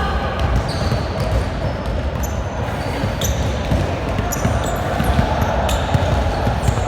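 Gym-floor game sounds: sneakers squeaking on the court and the thud of a ball, over a steady murmur of voices.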